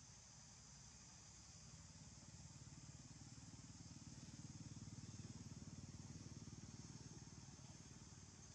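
Faint low engine hum of a passing motor vehicle, swelling to a peak about halfway through and fading again, over a steady high-pitched insect drone.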